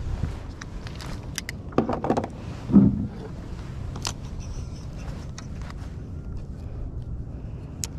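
Handling noises in a kayak: scattered clicks and knocks, a quick rattle about two seconds in and a louder thump just under three seconds in, over a low steady rumble of wind on the microphone.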